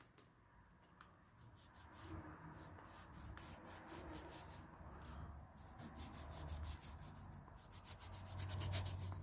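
T-cut polishing compound being rubbed by hand into a Raleigh Chopper's plastic pedal: quick, faint back-and-forth scrubbing strokes, several a second, growing louder near the end.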